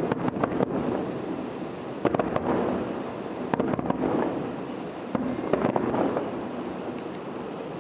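Aerial fireworks going off: clusters of sharp bangs and crackles every second or two over a continuous low rumble.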